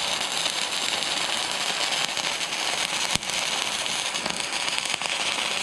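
Stick-welding arc burning steadily as an electrode rod lays a weld run into the V-cut crack of a steel excavator dipper arm, a continuous dense crackling hiss with one sharp pop about three seconds in.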